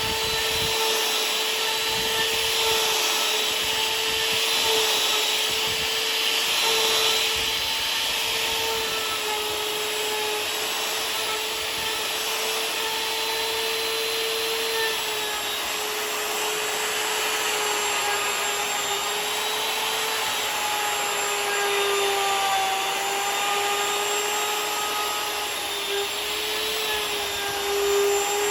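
Electric router surfacing a walnut slab, its motor running with a steady high whine over the hiss of the bit cutting the wood. The pitch sags a little in the second half as the bit takes load.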